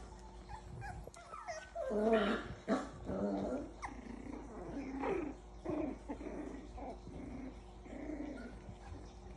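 Six-week-old Havanese puppies making small play growls and yips while they wrestle over toys. It is a string of short, wavering calls that starts about a second and a half in and is loudest soon after.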